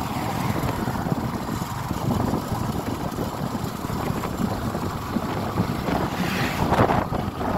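Wind rushing over the microphone on a motorcycle moving at highway speed, over a low engine and road rumble. Near the end a louder rushing swell comes from a tanker truck passing close alongside.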